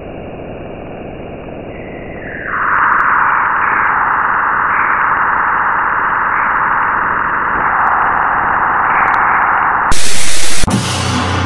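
Harsh static noise from a noisecore recording: a steady hiss that swells into a louder, denser band about two and a half seconds in, then a very loud full-range blast about ten seconds in. The band comes back in with drums right after the blast.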